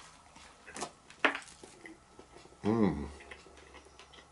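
A man tasting food: a couple of small clicks and mouth sounds, then about three seconds in a short hummed "mmm" that rises and falls in pitch.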